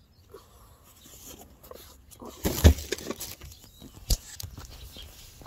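Handling noise from a phone being held and shifted in the hand, with rubbing and scattered clicks. The loudest thuds come about two and a half seconds in, with one more sharp knock about four seconds in.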